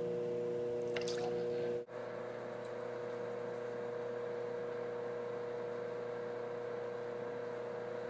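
Steady hum with water running through a flow visualization table's channel, drawn from the table's pump and flowing water. The sound breaks off for an instant a little under two seconds in, then carries on slightly softer.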